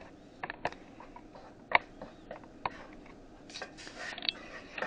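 A few scattered sharp clicks and light knocks of a utensil against a skillet and kitchenware, with short scraping or rustling noises near the end.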